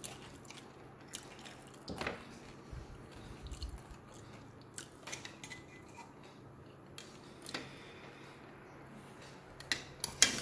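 Quiet mouth sounds of a person sipping iced water and chewing, with scattered small clicks. Shortly before the end, a few sharp clinks of tableware on the table and plate.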